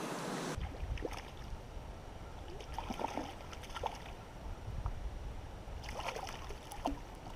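Light water splashing and trickling close by, in short scattered bursts over a steady low rumble.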